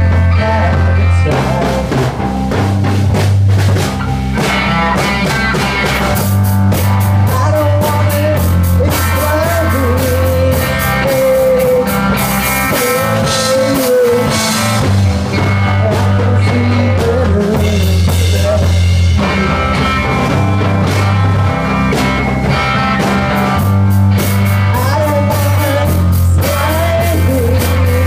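Live rock band playing: a kit drummer, a bass line shifting every second or two, and electric guitar, with a wavering melody line on top.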